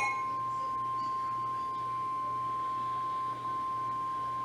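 NOAA Weather Radio warning alarm tone: a single steady high beep held without a break, the alert signal that comes before a severe thunderstorm warning is read.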